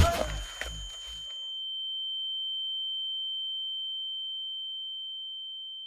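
A hard hit, then the fight music drops away within about a second, leaving one steady high-pitched ringing tone: a film's ear-ringing effect for a fighter knocked down and dazed.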